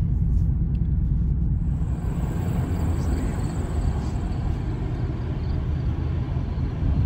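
Road and engine noise heard inside a moving car: a steady low rumble, with a hiss growing louder about two seconds in.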